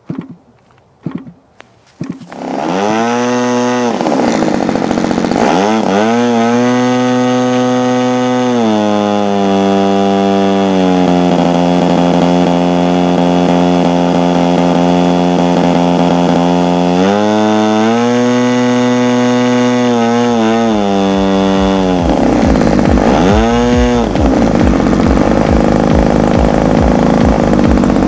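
DLE-30 30cc single-cylinder two-stroke gasoline engine on an RC plane, turning an 18x10 propeller: a few hand-flips of the prop give short knocks, then it catches about two seconds in and runs loud. It speeds up and slows down several times, with two quick throttle blips, and settles to a slower, uneven idle near the end.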